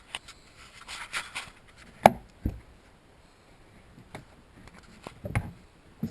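Loose interior trim pieces being handled and set down: rubbing and scraping, then a few sharp knocks, the loudest about two seconds in and another near the end.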